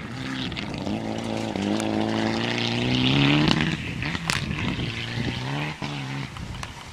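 Rally car engine revving hard as the car accelerates past on a dirt stage. The pitch climbs through one gear to its loudest, breaks off with a sharp crack about four seconds in, then climbs again through the next gear and fades as the car goes away.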